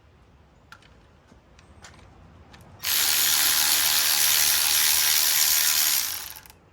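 Electric ratchet running for about three seconds, spinning a motor mount bolt out of a small-block Chevy 350, after a few light metal clicks.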